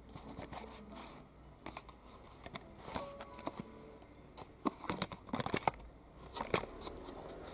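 Small cardboard toy-car box handled and turned in the fingers: light rubbing and taps on the cardboard, with a run of sharper clicks in the second half.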